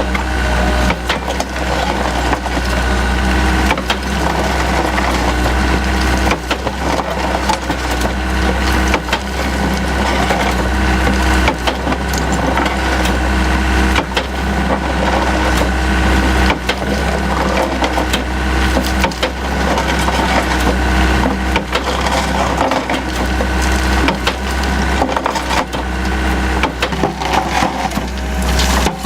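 Anross CB100 Crusha crusher bucket on a Takeuchi TB175 excavator crushing concrete and sandstone: its hydraulically driven jaw reciprocates while lumps crack and crunch in quick, irregular snaps. The excavator's diesel engine runs steadily under load underneath.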